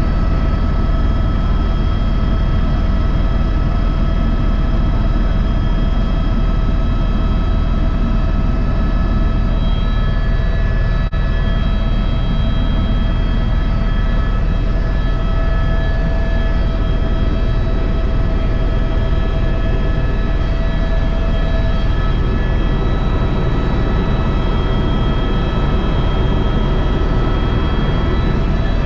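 Tour helicopter in steady cruise, heard from inside the cabin: a constant deep rotor and engine rumble with a steady whine of fixed tones over it, and one brief dip and click about eleven seconds in.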